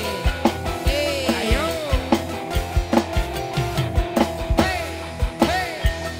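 Live dangdut band playing an instrumental intro: bass and electric guitar over a steady drum beat, with hand-drum strokes that slide up and down in pitch.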